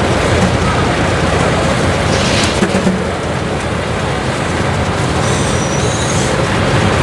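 Case steam traction engine working under load driving a sawmill, its exhaust barking from the stack in a fast, steady beat.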